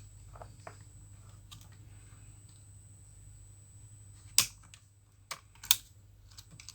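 A few sharp clicks and taps of small plastic parts being handled as laptop ribbon-cable connectors are unlatched, the loudest about four seconds in and two more close together soon after, over a steady low hum.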